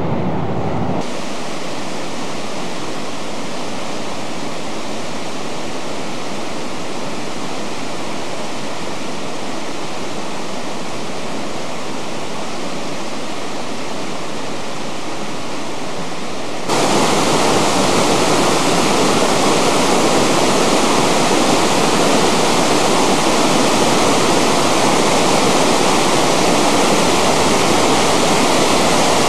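Steady rush of Treasure Falls, a 105-foot waterfall, with no break or rhythm; it jumps to a louder level about two thirds of the way through.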